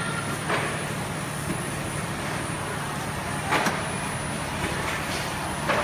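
Industrial tunnel baking oven running with a steady mechanical hum, and metal baking trays clanking on its output conveyor a few times: about half a second in, twice in quick succession past the middle, and again near the end.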